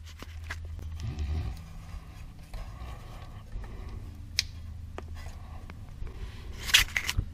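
Hands working the new O2 sensor's wiring into place under the truck: soft rustling and small clicks, with one sharp click about four seconds in and a brief scrape near the end, over a low steady rumble.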